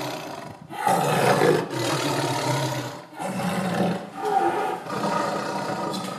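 Lion roaring: a run of long roars, each about a second, with short breaks between them.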